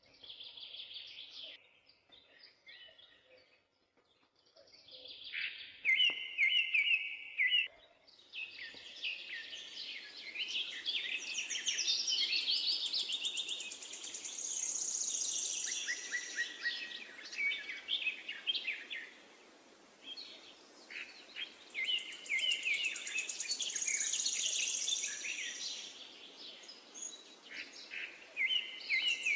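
Birds chirping and singing, sparse at first and then a dense chorus of quick, varied notes from about eight seconds in, over a faint steady hiss.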